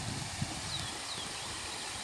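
Outdoor ambience: a steady hiss with irregular low rumbling thumps and a sharp click near the start. A small bird gives two or three short falling chirps about a second in.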